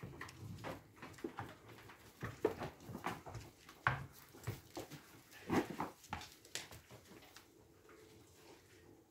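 A herd of goats moving about a barn on straw bedding: scattered knocks and rustles, with a few short animal calls, the clearest about five and a half seconds in.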